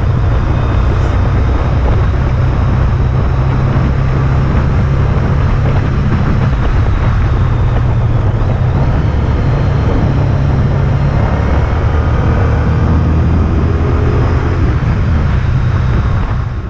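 Honda Pan European ST1300's V4 engine running steadily at cruising speed, with wind and road noise, fading out near the end.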